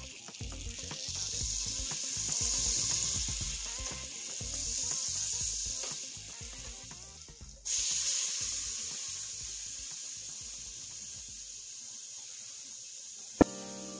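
Melted butter sizzling and frying in a hot stainless-steel pot as seasoned chicken breasts are laid in to sear. The sizzle swells twice, cuts off abruptly about halfway, then comes back as a steady hiss that slowly fades. A single sharp click comes near the end.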